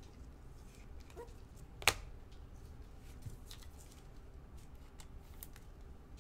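Trading cards being handled and shuffled by hand: faint rustling and light ticks, with one sharp click about two seconds in.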